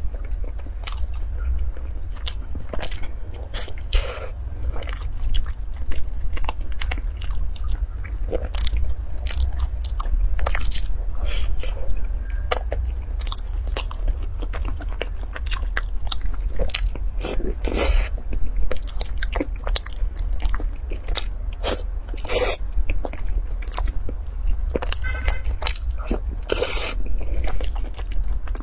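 Close-miked eating of a filled pastry: bites, chewing and crunching, with many short wet mouth clicks and crackles at an uneven pace. A steady low hum runs underneath.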